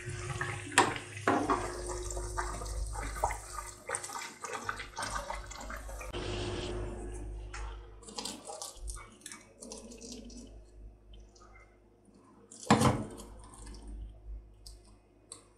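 Layered yeast-dough pastry deep-frying in hot oil in a saucepan, sizzling with many small crackles and pops that thin out near the end. A single sharp clink of a metal fork on the pan comes late on.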